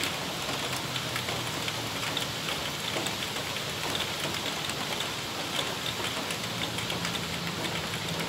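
Heavy rain falling steadily, with many small drop ticks on corrugated metal roofing. A low, steady engine hum from road traffic grows louder near the end.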